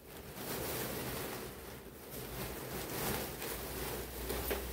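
Tussar silk saree rustling and swishing as it is unfolded and lifted by hand, a soft uneven fabric noise that swells and fades with her movements.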